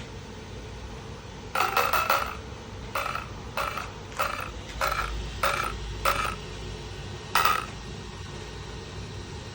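Brushless motor and ESC of an Arrma Kraton 6S RC truck stuttering: about eight short whining pulses with a clear tone, roughly every half second, instead of a smooth spin-up. The owner puts it down to either a bad motor or a bad ESC.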